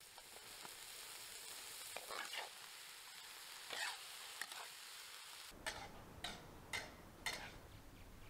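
Chopped onions sizzling as they fry in a pan, with a large metal spoon scraping through them a few times. After about five seconds the sizzle gives way to four sharp knocks about half a second apart.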